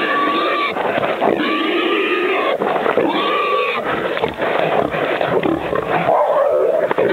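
Wild boar held by hunting dogs, squealing loudly in a run of long, harsh screams about a second each, one after another.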